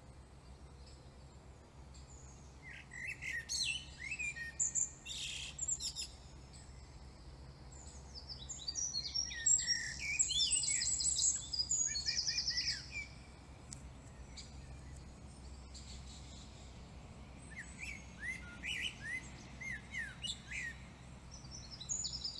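Songbirds chirping in scattered bouts, with a denser stretch and a fast trill near the middle, over a low steady hum.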